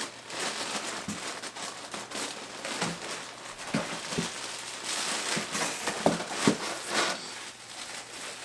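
Packaging crinkling and rustling as a jersey is dug out of a cardboard shipping box by hand, with a few short knocks in between.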